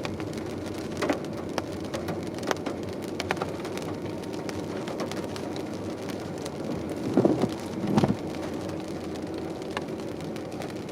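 Rain falling on a car's roof and windshield, heard from inside the moving car: scattered drop clicks over a steady low road hum. Two louder thumps come about seven and eight seconds in.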